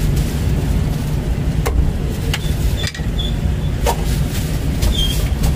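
A few sharp knocks of a cleaver on a thick wooden chopping block, about one every second or so, over a steady low rumble.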